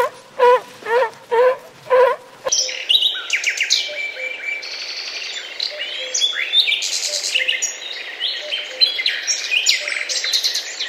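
A sea lion barking in a quick series, about two barks a second, for the first two seconds or so. Then it switches abruptly to a busy chorus of small songbirds chirping and trilling over one another.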